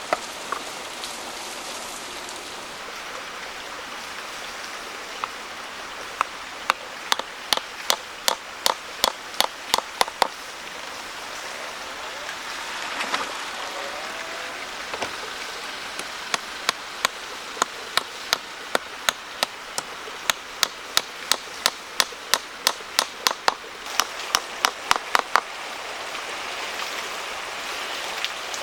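Quick, regular knocks of a tool striking wood, about three a second, in two long runs, over a steady hiss.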